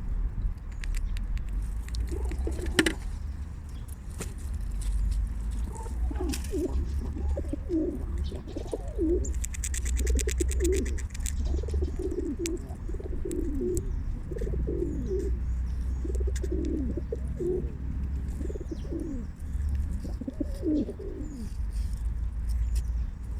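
A pigeon cooing over and over in a long run of low, wavering notes, with scattered sharp clicks and a louder knock about three seconds in.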